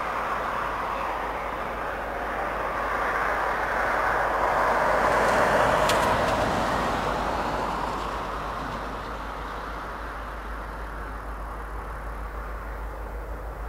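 Freight train led by several Union Pacific diesel-electric locomotives approaching and passing, its engines and rolling wheels growing louder to a peak about halfway through and then easing off. A brief sharp tick sounds near the middle.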